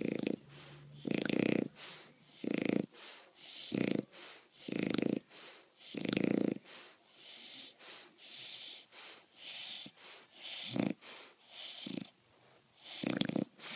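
English bulldog puppy snoring in its sleep: a loud throaty snore about every 1.3 seconds, with wheezy, hissing breaths between. In the middle the snores turn softer and mostly wheezy, then grow loud again near the end.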